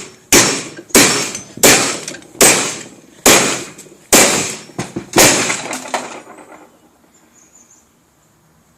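Repeated sharp metal blows, a hammer striking a padlock to break it open. About seven hard strikes come a little under a second apart, then lighter, quicker taps that fade out.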